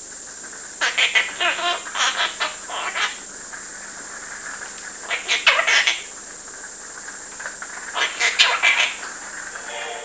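Quaker parrot chattering and squawking in three short bouts, about a second in, about five seconds in and about eight seconds in.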